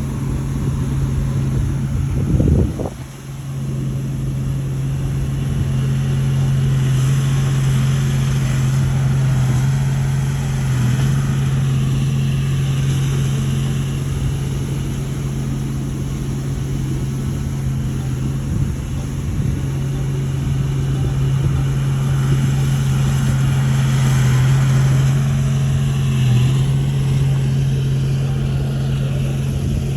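Heavy earthmoving machine's diesel engine running steadily at a constant speed, with a short louder noise about two and a half seconds in.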